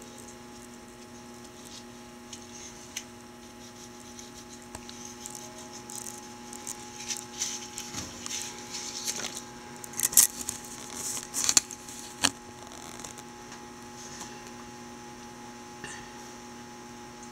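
A steady electrical mains hum with a few fixed tones, and scattered rustles and sharp clicks through the middle stretch, the loudest three clicks close together near the end of it.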